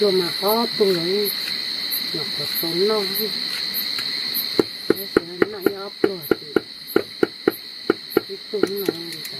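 Steady chorus of forest insects buzzing, with a high pulsing note about twice a second. Over it come wavering low-pitched calls in the first few seconds, then, from about halfway, a quick run of sharp clicking calls about four a second.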